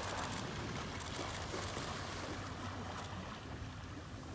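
Boat drifting at sea: a low steady engine hum under an even wash of water and wind noise.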